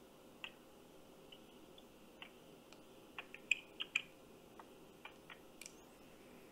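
Faint, irregular light clicks, with a quick cluster of them about three to four seconds in, over a low steady hum.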